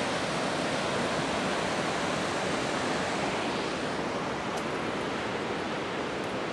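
Shōmyō Falls, a 350 m waterfall, thundering as a steady roar of falling water.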